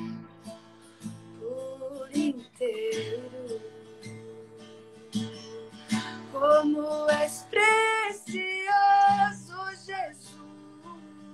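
Slow worship song: a woman sings long held notes over a strummed acoustic guitar. Her voice is loudest from about six to ten seconds in.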